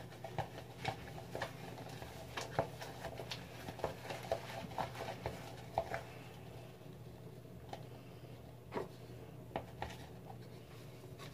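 Shampoo-and-cornstarch slime being mixed by hand: faint, irregular soft squishes and small clicks, frequent in the first half and sparser later.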